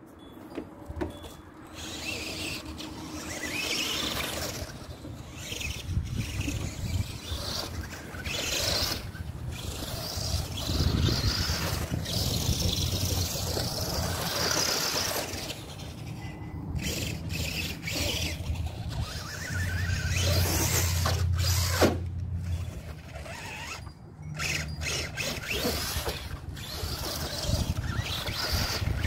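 Arrma Granite 4x4 RC monster truck driving over grass and dirt: its electric motor whines up and down with the throttle, dropping out briefly a few times when the throttle is let off.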